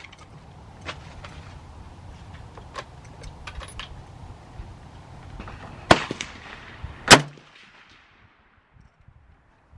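Rifle fire: two loud shots about a second apart, the second the loudest, with fainter sharp cracks in the seconds before them.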